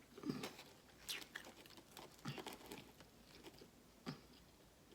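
A person chewing and biting food close to the microphone: a few short, quiet crunches and wet mouth noises spaced out over a few seconds.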